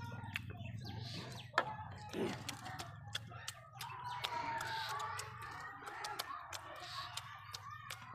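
Chickens clucking and calling in the background, with one longer call about four seconds in. Over them are small sharp clicks of fingers picking food from steel plates.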